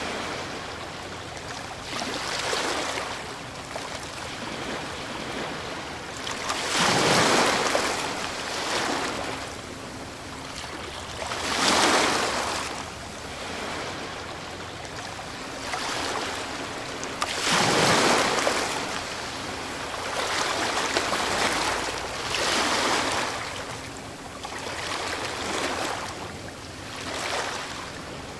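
Ocean waves breaking on a shore, surging and washing back. The biggest waves crash about 7, 12 and 18 seconds in, with smaller ones in between.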